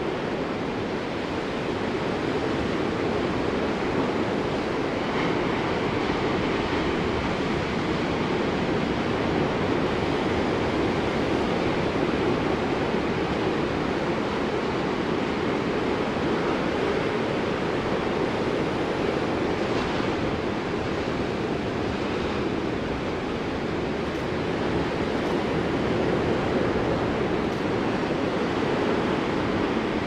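Ocean surf breaking on a sandy beach: a steady, even wash of waves with no single crash standing out.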